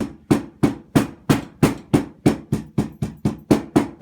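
A hammer repeatedly pounding a slab of gingerbread dough flat, steady strikes about three a second.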